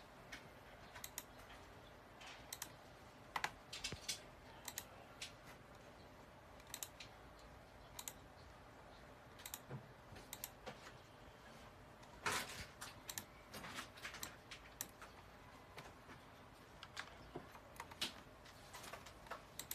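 Irregular clicking of a computer mouse and keyboard as the software is operated, with a quick cluster of clicks about twelve seconds in.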